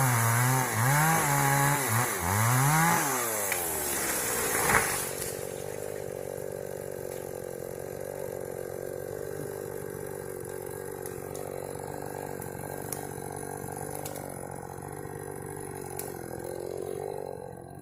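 Two-stroke chainsaw revving up and down in short bursts, then dropping back to a steady idle about five seconds in.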